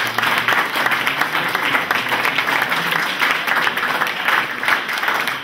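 A small crowd applauding, many hands clapping at once in a dense, steady patter.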